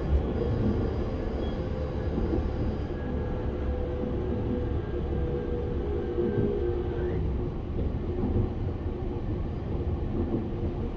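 Japanese E231 series 1000-number electric commuter train running, heard inside a motor car: steady rumble of wheels on rail with a steady electric whine from its Hitachi IGBT VVVF inverter drive that dies away about three seconds in, leaving the rumble.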